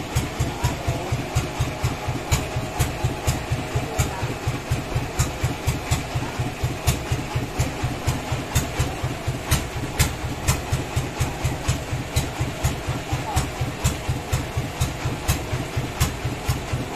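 Engine driving a band-saw mill, running steadily at idle with an even low thump about four or five beats a second and scattered light clicks and rattles over it.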